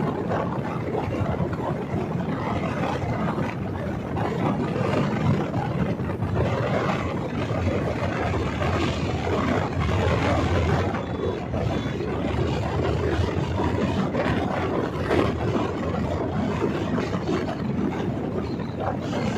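Motorcycle engine running steadily at cruising speed, mixed with wind rush on the microphone, heard from the rider's seat.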